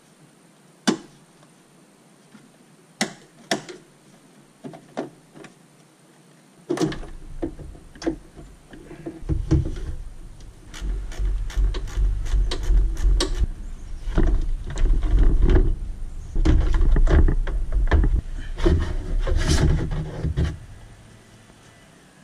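Hands working in a car's engine bay: scattered sharp clicks and knocks of parts and a wiring connector being handled. In the second half these come fast over heavy, uneven low rumbling of handling noise, and there is no steady motor sound from the radiator fan.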